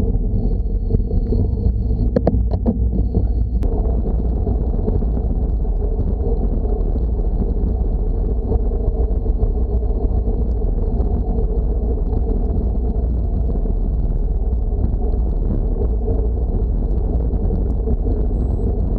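Wind buffeting an action camera's microphone on a bicycle freewheeling downhill at about 50 km/h, a steady low rumble. In the first few seconds, before the sound changes abruptly, a few sharp clicks are heard.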